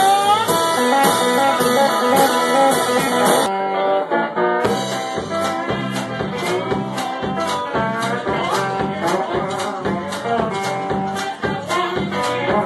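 Live blues band playing: a guitar lead with bending notes over bass and a steady drum beat.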